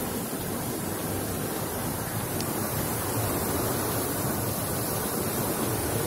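Steady rushing of water cascading over boulders in a waterfall stream.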